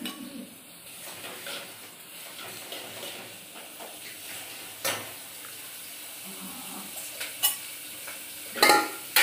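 Chopped onion, green chillies, garlic and ginger sizzling as they fry in oil for a chole tempering. A few sharp clinks of a steel spoon against the cookware come about five seconds in and twice near the end.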